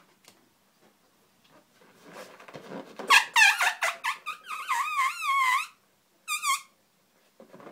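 Inflated latex balloons squeaking as fingers rub and press them together. After some faint rubbing, a run of wavering, pitch-bending squeaks lasts nearly three seconds, then one short squeak follows.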